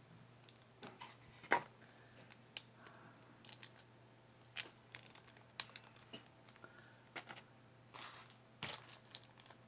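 Small pieces of jewelry being handled: scattered light clicks and soft rustles, the sharpest clicks about one and a half seconds in, midway and near the end.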